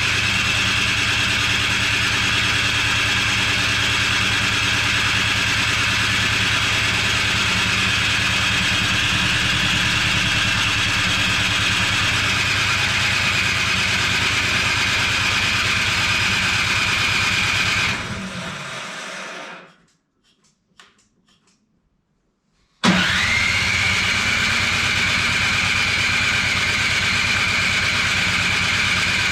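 Cub Cadet 1X snow blower's electric starter cranking the engine: a high whine that rises as it spins up and then runs steadily without the engine catching. It winds down about 18 seconds in, a few seconds of quiet with a couple of faint clicks follow, then the starter whines up and cranks again. The engine won't fire on gas left in it since last March, which the owner takes to have gone bad.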